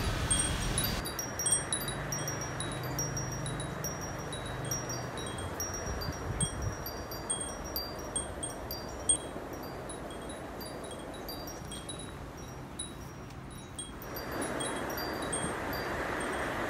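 Metal-tube wind chime ringing with many light, irregular strikes of high tones over a steady hiss. Near the end the chimes stop and a louder steady hiss takes over.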